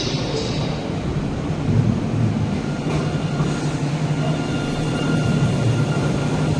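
Alstom Citadis 302 low-floor tram pulling into a covered station and rolling slowly past, humming steadily with faint high whining tones. A brief hiss at the start.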